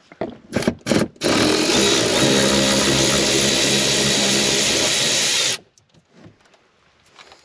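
Milwaukee M12 cordless ratchet blipped a few times, then run steadily for about four seconds, backing out a fender-liner bolt, before stopping abruptly.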